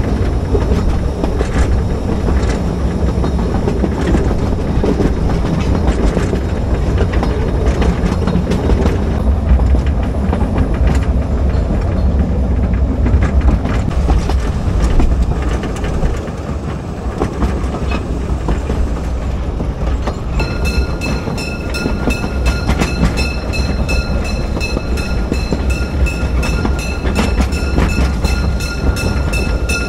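Narrow-gauge park railway train riding along, a steady rumble with wheels clattering over the rail joints. About two-thirds of the way in a high, steady ringing tone with a fast pulse joins and runs on.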